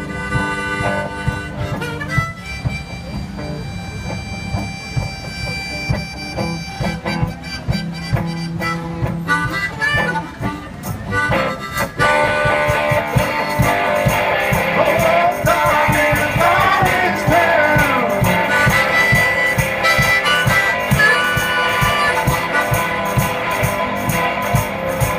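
One-man band playing harmonica over guitar accompaniment and a steady beat, getting louder about twelve seconds in.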